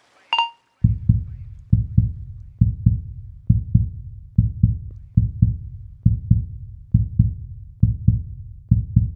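A single short high beep of an interval timer marks the end of the work interval. Then comes a heartbeat sound effect for the rest break: a low double thump, repeating evenly a little more than once a second.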